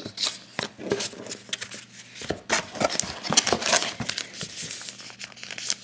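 Trading cards and packaging being handled by hand: irregular light clicks and rustles of card stock, with some crinkling.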